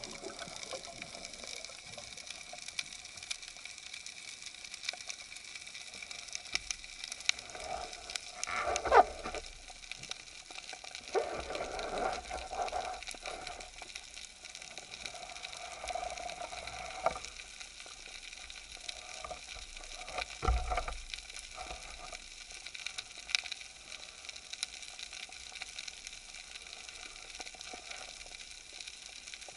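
Underwater ambience as picked up by a diver's camera: a steady crackling hiss, with several swishes of water movement in the middle stretch and a short low thud about two-thirds of the way through.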